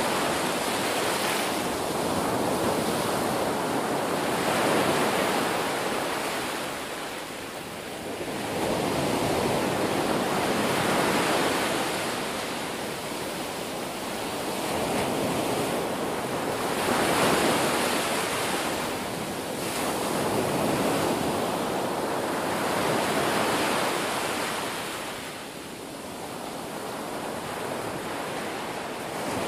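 Sea surf: waves breaking and washing through shallow water, swelling and easing every few seconds.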